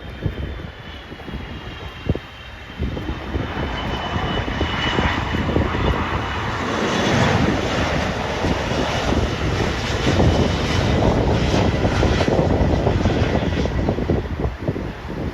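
Jet engines of an Asiana Airlines airliner passing over the airport park: a whining jet rush that builds for several seconds, holds at its loudest through the middle and eases near the end.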